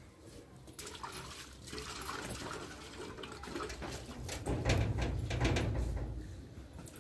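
Water buffalo being hand-milked into a steel bucket: jets of milk hiss into the pail about twice a second as the hands squeeze the teats in turn. A low rumble swells up in the middle and is the loudest part.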